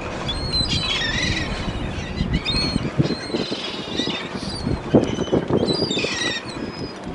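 A flock of gulls calling, many short overlapping cries one after another, over a steady low rush of wind and water.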